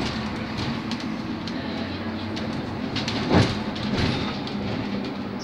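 Ride noise inside a moving Škoda 31Tr trolleybus: a steady low hum over road rumble, with frequent small rattles and clicks from the cabin. There is one loud thump a little past three seconds in.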